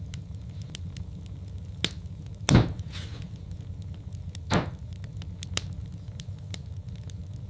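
Log fire in a fireplace crackling over a steady low rumble, with sharp snaps scattered throughout. Two louder pops come about a third of the way in and just past the middle.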